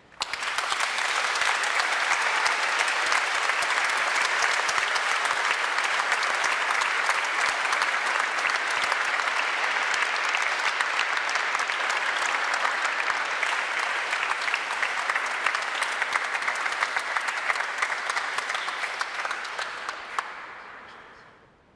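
Audience clapping, a dense steady applause that starts at once and dies away near the end.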